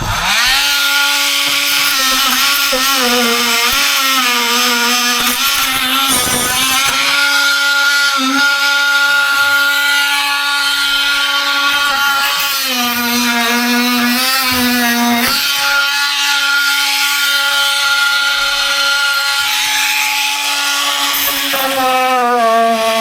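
Oscillating multi-tool running and cutting, a steady high buzz that starts suddenly and drops in pitch now and then as the blade is pressed into the cut.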